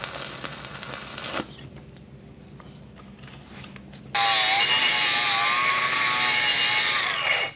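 Stick-welding arc crackling on the 8010 cap pass, breaking off sharply about a second and a half in as the rod is stepped out of the puddle. Then, about four seconds in, a loud power tool runs for about three seconds with a wavering whine and cuts off suddenly.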